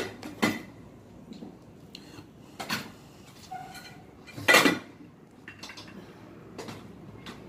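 A spoon knocking and scraping against a bowl several times while eating, the loudest and longest stroke about four and a half seconds in.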